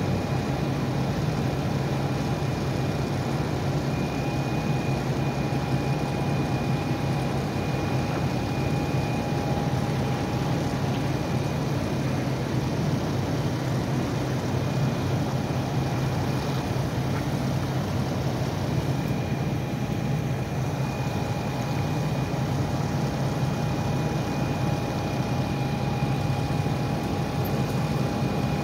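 Heavy vehicle engines idling steadily, a continuous low drone. A thin steady high whine rides over it, dropping away for several seconds midway and coming back.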